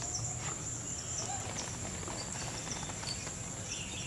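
Outdoor ambience: a steady high insect trill, with a few faint short chirps scattered through it.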